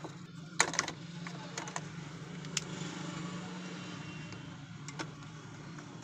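Nose pliers clicking and scraping against the metal and wire parts of an opened blower room heater as wires are pulled through. The sharpest click comes about half a second in, a few more follow over the next two seconds, and one comes near five seconds, all over a steady low hum.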